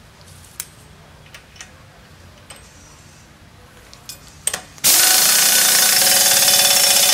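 Pneumatic impact wrench spinning down a mud motor's propeller nut, in one loud, steady run of a little over two seconds that starts near the end and cuts off sharply. A few light clicks and knocks of parts being handled come before it.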